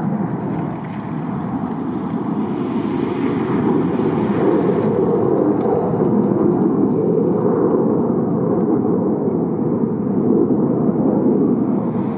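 Twin jet engines of an F/A-18 Hornet, a loud, steady deep rumble as it passes low overhead and flies away.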